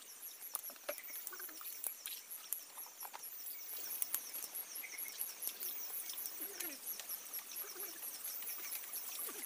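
Forest insects chirping in a steady, rapid pulsing rhythm, with scattered sharp clicks and knocks throughout.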